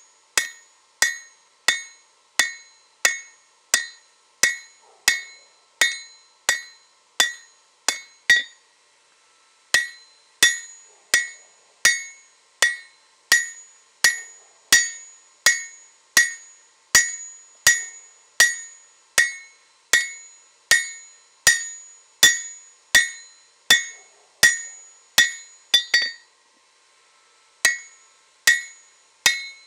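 Hand hammer striking a red-hot leaf-spring-steel blade on an anvil at a steady pace, about three blows every two seconds. Each blow has a short metallic ring, and the work breaks off twice briefly.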